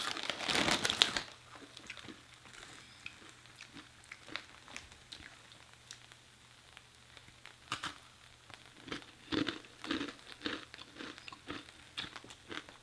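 Crinkling and crackling for about the first second, then quiet, then crisp crunches and chewing of Takis rolled tortilla chips close to the microphone from about eight seconds in.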